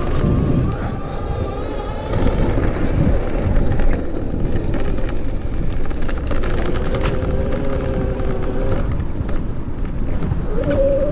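Rear hub motor of a DIY 48V 1000W e-bike whining under throttle, its pitch dipping and then rising again with speed, climbing sharply near the end. Under it are a steady rumble of tyres on a dirt trail with wind on the microphone, and short rattles from bumps.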